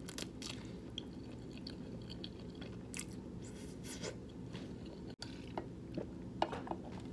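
Chewing a mouthful of food close to the microphone, with soft wet mouth clicks, over a low steady hum.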